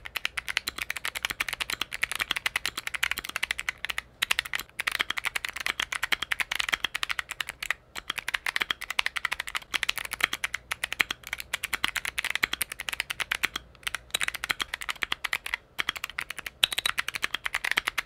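Fast, continuous typing on a mechanical keyboard fitted with clicky Kailh Box switches: a dense stream of sharp clicks, broken by a few brief pauses.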